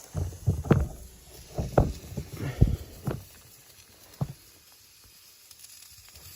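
A run of about ten irregular dull thuds and knocks over roughly four seconds, with one last knock after a short pause.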